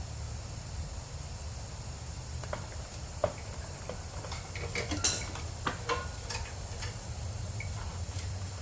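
Scattered light metallic clinks and taps of hand tools and small engine parts as a pressure washer's carburetor is worked loose, two sharper clicks standing out. A steady low hum runs underneath.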